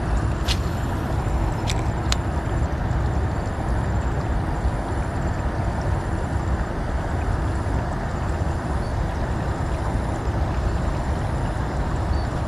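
Steady wind rumbling on an action-camera microphone, with a couple of sharp clicks in the first two seconds.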